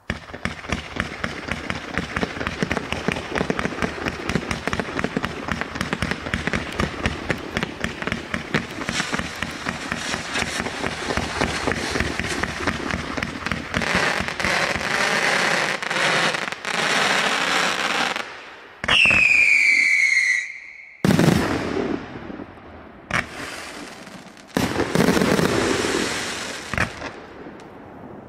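A Yihelong 'Milan Night' 258-shot fireworks cake firing: a fast, nearly continuous stream of launch pops and small bursts with crackle for most of the first eighteen seconds. Then a whistle falling in pitch sounds for about a second, and after that come several louder volleys of bursts with short pauses between them.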